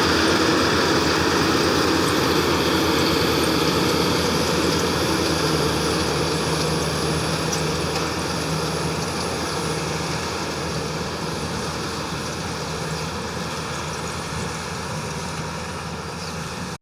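World rice combine harvester running: a steady engine and machinery drone with held tones, slowly getting quieter.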